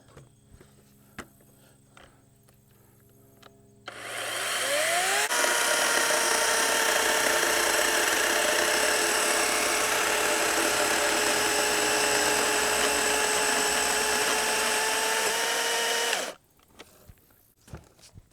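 Greenworks 40-volt battery chainsaw whining up to speed about four seconds in, then cutting steadily through a log for about eleven seconds before it stops suddenly. A few faint clicks come before it starts.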